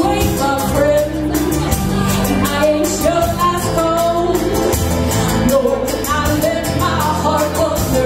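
A woman singing a song live to a strummed ukulele, with a steady strumming rhythm under her voice.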